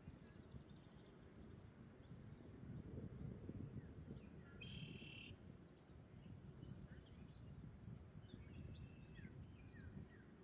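Faint bird calls over a low rumble of wind on the microphone: one short, buzzy call about halfway through, then a few brief chirps near the end.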